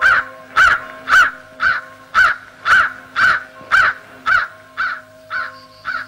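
Crows cawing in a steady, regular run of short calls, about two a second, over a faint steady background tone. A higher held tone enters near the end.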